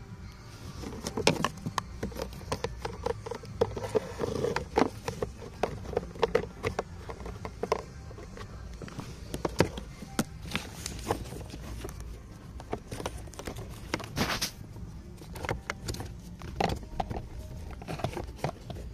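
Irregular plastic clicks, taps and rustles as a pleated cabin air filter and its plastic cover are handled and slid into the filter housing, with a short louder rustle about fourteen seconds in.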